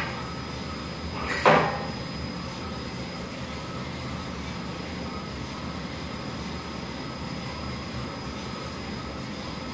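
Commercial drum coffee roaster running steadily mid-roast, its drum, burner and exhaust fan making a constant hum. About a second and a half in comes one short sliding scrape, the sample trier moving in its port on the roaster front.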